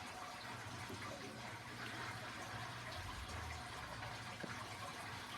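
Faint small clicks of a pick and tension wrench working a deadbolt's pin-tumbler cylinder, over a steady hiss and low hum.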